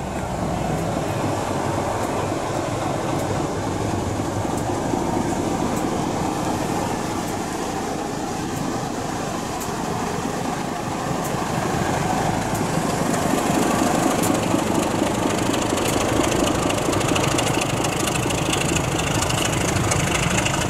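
Class 25 diesel locomotive's Sulzer six-cylinder engine running steadily as it departs, growing louder about thirteen seconds in.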